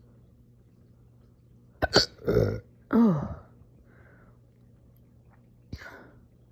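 A person's aggressive hiccup-burps: a sharp hiccup about two seconds in, straight away followed by two burps, the second a voiced burp falling in pitch, then another sharp hiccup with a short tail near the end.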